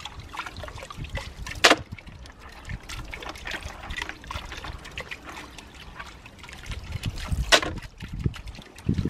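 Water trickling and sloshing as a hand works in a garden pond filter box full of dirty water, with two sharp knocks, one about two seconds in and one near the end.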